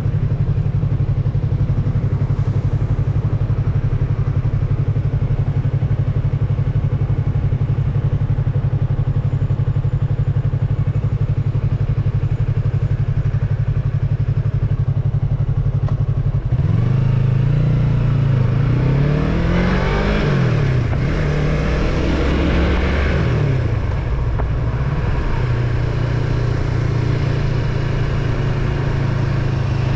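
Yamaha MT-03 motorcycle engine running at a steady note. About halfway through, the revs rise and drop several times as the bike accelerates through the gears, then it settles back to a steady note near the end.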